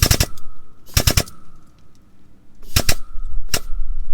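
Come-along ratchet clicking as its handle is cranked to pull the bent truck frame, with sharp clicks in quick groups of two or three, about one group a second.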